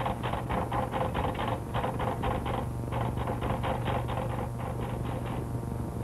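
Manual typewriter being typed on rapidly, about seven keystrokes a second, with a brief pause about three seconds in. The typing thins out and stops about five seconds in.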